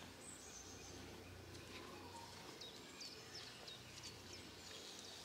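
Faint garden ambience: a bird calling with a string of short, high, falling chirps through the middle, over a faint steady low rumble.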